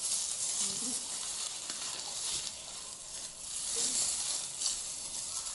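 Ferns and grass rustling and swishing as people walk through them, with the plants brushing against their jeans and the nearby camera, and a few faint bits of voice.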